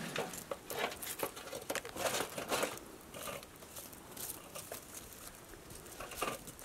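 Irregular crunching, clinking and scraping as a gloved hand handles a rusty metal tray of hot charcoal briquettes at a campfire. The sounds come thickest in the first three seconds, then thin out, with another short cluster near the end.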